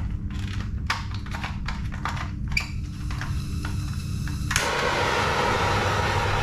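A row of sharp clicks and taps, then a steady hiss that starts abruptly about four and a half seconds in as the heat source for melting the zip ties is switched on. A low steady hum runs underneath throughout.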